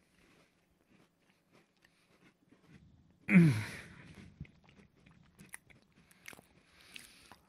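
Close chewing and crunching of a crunchy biscuit tartlet eaten whole, faint small crunches at first. About three seconds in comes a loud, muffled vocal sound through a full mouth, falling in pitch, followed by more crunches.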